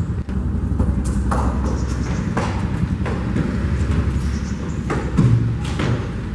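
Running footsteps on paved ground: a few sharp, irregular footfalls over a low rumble.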